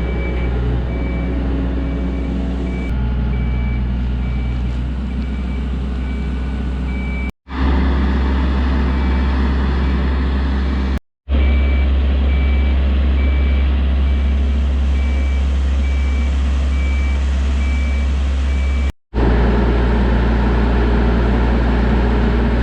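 Heavy vehicle's diesel engine running with a deep, steady rumble while its reversing alarm beeps at an even pace. The beeping stops at a cut near the end, and the engine carries on.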